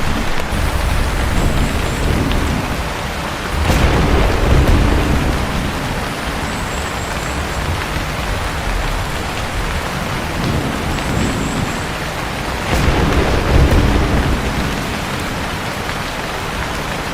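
Steady heavy rain, with thunder rumbling twice, about four seconds in and again near thirteen seconds.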